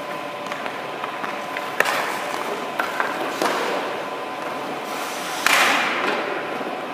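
Hockey goalie's skate blades scraping and cutting the ice as he pushes and shuffles across the crease, with a sharp tap about two seconds in and a longer, louder scrape near the end.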